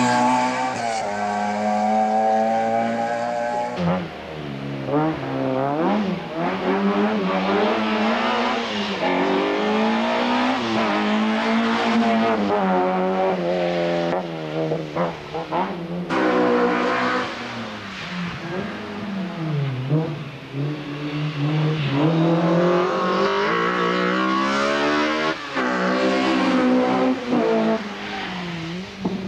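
Rally hatchback engines revving hard as the cars accelerate uphill one after another, the pitch climbing and dropping back at each gear change.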